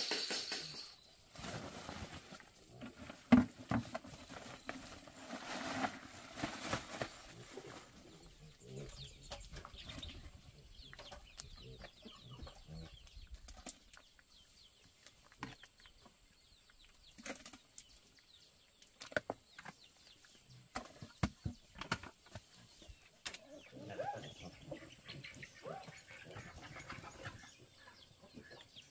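Chickens clucking, with scattered knocks and taps; one sharp knock about three seconds in is the loudest sound.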